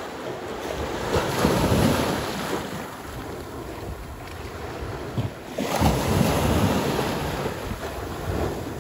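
Small waves breaking and washing along the foot of a concrete sea wall on a high tide, with wind buffeting the microphone. Two louder surges come through, about a second in and again just before six seconds.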